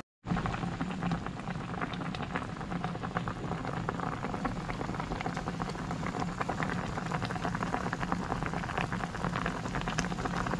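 A pot of tinolang tilapia broth boiling, bubbling and popping steadily, after a moment of silence at the very start.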